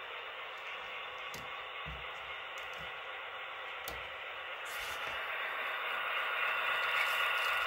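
Model railway locomotive running on the layout: a steady, thin-sounding hum that grows louder about five seconds in, with a few faint clicks.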